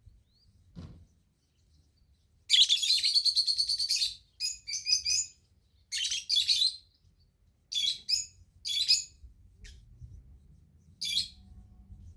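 A bird singing: a rapid, high-pitched trill lasting about a second and a half, followed by a series of short chirping phrases spaced about a second apart.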